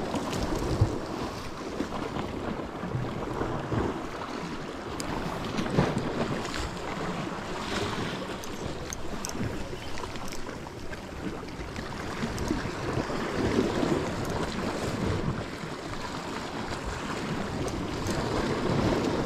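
Sea waves washing against rocks, with wind rumbling on the microphone and a few faint clicks.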